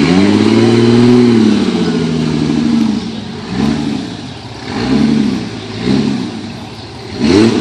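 Engine of a caged Jeep rock crawler revving as it crawls over rock ledges. One long rev opens, then four short blips of the throttle follow.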